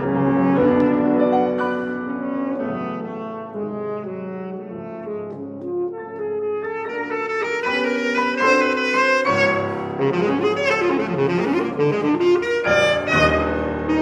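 Alto saxophone and grand piano playing a contemporary classical duo: the saxophone carries the melodic line over piano chords. From about seven seconds in the music grows busier and brighter, with a stretch of bending, wavering notes a little later.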